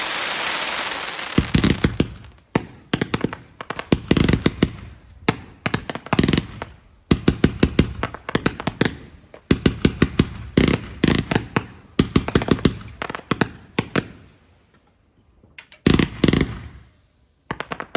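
Fireworks going off: dense strings of sharp bangs and crackles in rapid clusters, opening with about two seconds of hissing crackle. There is a short lull about 14 seconds in before another burst.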